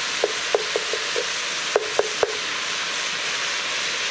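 Diced vegetables and tomato paste sizzling steadily as they brown in a Petromax FT9 cast-iron Dutch oven. A wooden spoon stirring them knocks against the pot several times in the first two and a half seconds, then only the sizzle goes on.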